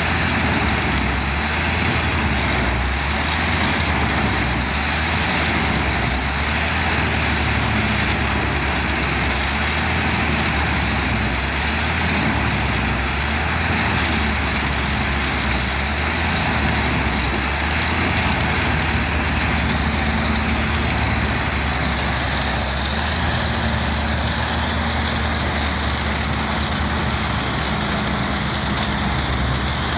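Eschlböck Biber 84 wood chipper running steadily under load, chipping logs fed by its crane: a constant engine drone with the rushing hiss of wood chips blown out through the discharge spout.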